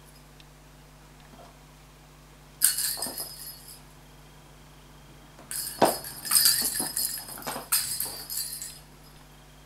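A small toy cat ball clattering and clinking as the kitten bats it and it bounces and rolls on a hard floor. There is a short burst about two and a half seconds in, then a longer run of knocks and rattles from about five and a half seconds to near the end.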